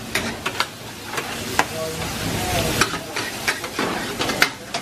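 Beef and onions stir-frying in a steel pan over a high gas flame: a steady sizzle and hiss, with the metal ladle scraping and clinking against the pan many times.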